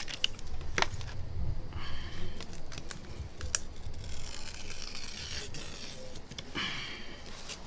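Small metal tools and plastic film being handled on a repair bench: a few sharp clicks and taps, with stretches of light scraping and rustling in the second half.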